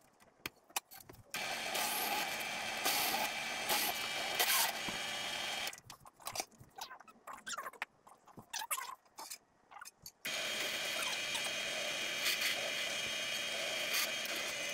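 Benchtop drill press running with a steady whine while holes are drilled, starting about a second in. It stops for about four seconds in the middle, leaving only a few small clicks of parts being handled, then runs again.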